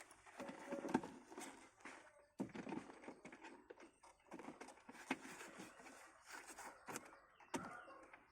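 Faint rustling and scuffing of a car floor mat being pressed and tucked into place, with scattered light knocks and clicks.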